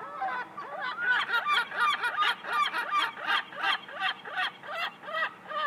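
Seagulls calling from a roof: a rapid series of short, sharp calls, about three to four a second, busiest in the middle.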